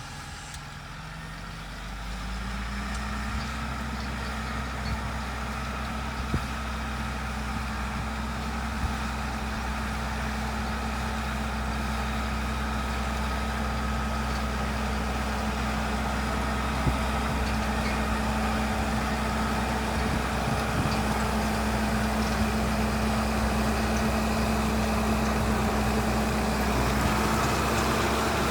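Tractor engine picking up speed about two seconds in, then running steadily at working speed with a steady low drone and a faint high whine.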